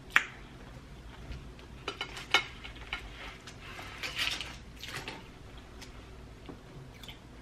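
Metal fork clicking against a plate a few times, the sharpest tap just at the start, with soft mouth sounds of chewing in between.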